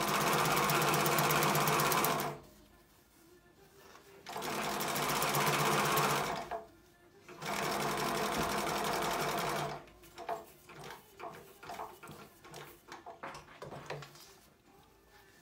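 Juki LU-563 industrial walking-foot leather sewing machine stitching a hide to its fabric backing in three runs of about two and a half seconds each, with short pauses between. These are followed by a few seconds of soft irregular clicks and rustling.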